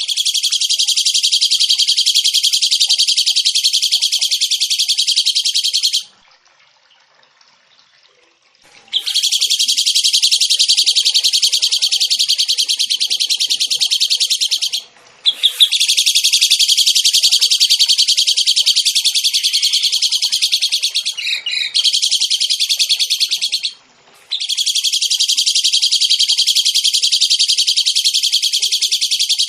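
A songbird singing long, very rapid, high trills in four bouts of about five to nine seconds each, broken by short pauses.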